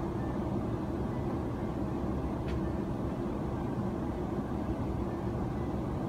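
Steady low roar of an airliner in flight, engine and airflow noise as heard inside the passenger cabin. A faint click about two and a half seconds in.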